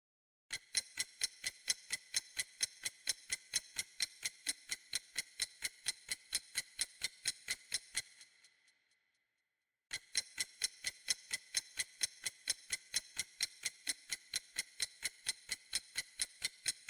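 Clock ticking, about four sharp ticks a second, in two runs with a short pause between them about eight seconds in.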